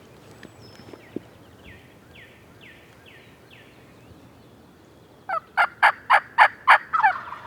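Wild turkey gobbler gobbling close by: one loud, rapid, rattling gobble about five seconds in, lasting nearly two seconds.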